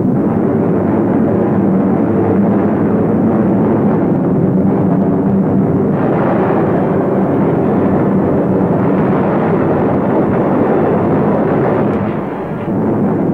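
Piston aircraft engines droning steadily in flight, a dense rumble with a fixed hum, dipping briefly near the end.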